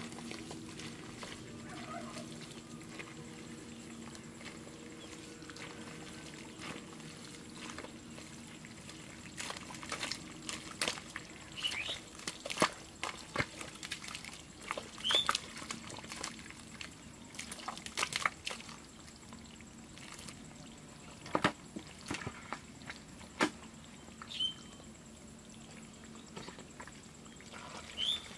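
Hands digging and groping through wet mud and shallow water while feeling for eels in their hole: irregular squelching and splashing, sparse at first and coming thick and fast after about ten seconds, then easing off near the end.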